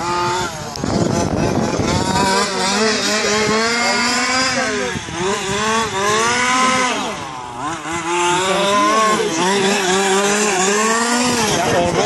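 Two-stroke petrol engine of a Losi 5ive 1/5-scale RC car, revving up and down again and again as the car is driven hard around the track, with a brief drop to low revs about seven seconds in.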